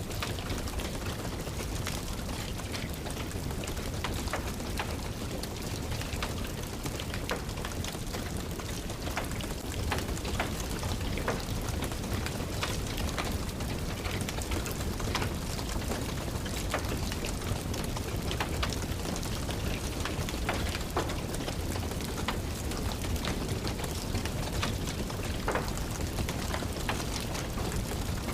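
Steady rain pattering, mixed with the irregular sharp crackle of a wood fire burning in a fireplace.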